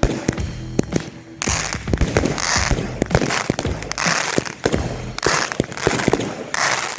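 Consumer fireworks going off in quick succession: sharp pops and cracks several times a second. From about a second and a half in, they come with repeated bursts of crackling hiss.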